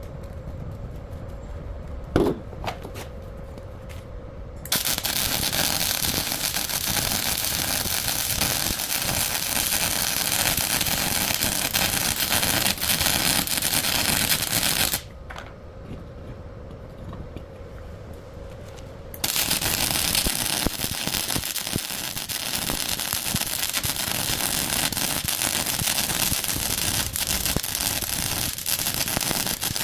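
Electric arc welding on a broken truck axle, crackling steadily in two long runs that start and stop abruptly, with a short pause between them. A single sharp knock comes about two seconds in.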